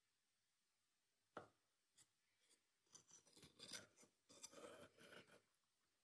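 Kitchen knife slicing fresh mozzarella on a countertop: a sharp tap of the blade on the counter about a second in, another a little later. Then a run of short clicking, scraping cutting and handling sounds for about two and a half seconds, all quiet.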